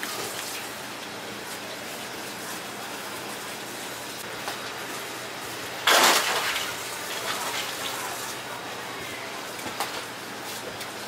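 Steady background noise of a working bakery kitchen, with one short, loud rushing burst about six seconds in.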